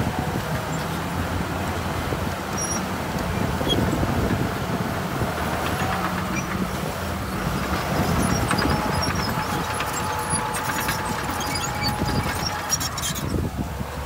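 Heavy diesel construction machinery running steadily, a low engine hum with scattered knocks and rattles.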